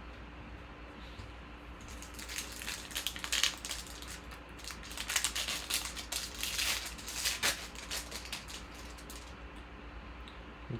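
Trading cards being handled and shuffled by hand: a run of quick rustles and light clicks starting about two seconds in and stopping shortly before the end, over a faint steady hum.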